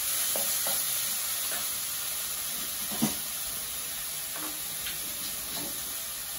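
Onion-tomato masala sizzling as it fries in oil in a nonstick kadai, stirred with a spatula at first, with one sharp knock about three seconds in.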